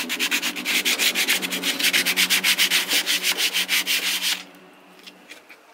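Sandpaper rubbed by hand back and forth along a wooden board in quick, even strokes. The sanding stops about four and a half seconds in.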